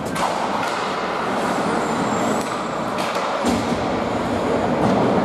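Ice hockey play on a rink: a steady scraping rush of skates on the ice, broken by several sharp clacks of sticks, puck or boards.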